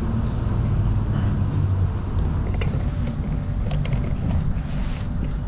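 Steady low rumble of a tram heard from inside the passenger cabin, with a few short light clicks and knocks from about two seconds in.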